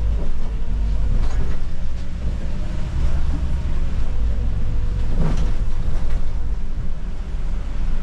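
Solaris Urbino IV 12 city bus driving, heard from inside at the front: a steady low rumble of the drivetrain and road, with a faint steady whine. A single brief knock sounds about five seconds in.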